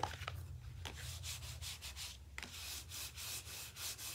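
A hand rubbing hard across the back of a cardstock shadow-box panel in quick repeated strokes, several a second, starting about a second in. The card is being burnished to spread the liquid glue beneath the painted card glued inside.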